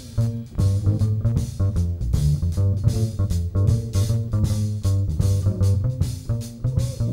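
Small jazz combo playing a swing tune: a guitar plays over a moving bass line, with drum kit strikes keeping time.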